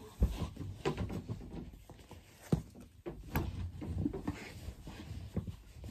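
Clothes rustling as pants are pushed and packed into a full wooden dresser drawer, with a few sharp knocks of wood against wood.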